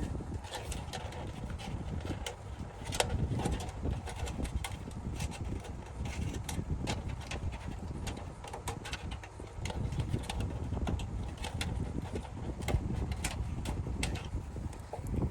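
Irregular clicks and taps of hands handling cables and plastic parts inside a desktop PC case during cable routing, over a low background rumble.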